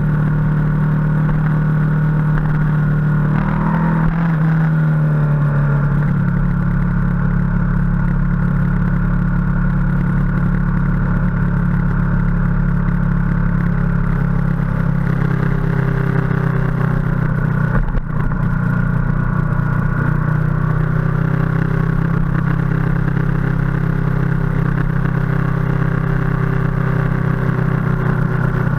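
Ducati motorcycle engine running steadily under way, heard from on board the bike, with a brief change in pitch about four seconds in and a short dip near eighteen seconds.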